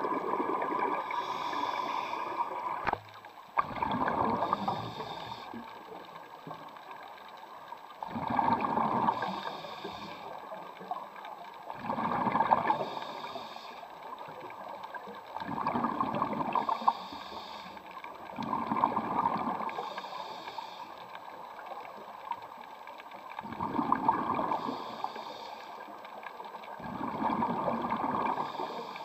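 A scuba diver breathing through a regulator, heard underwater: gurgling bursts of exhaled bubbles, with a regulator hiss in some breaths, swelling every three to four seconds. A single sharp click comes about three seconds in.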